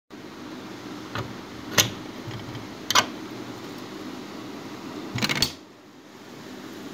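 A metal-framed window being unlatched and pushed open: sharp clicks and knocks of the latch and frame about a second in, near two seconds and at three seconds, then a short rattle of clicks near five and a half seconds. A steady low hum runs underneath.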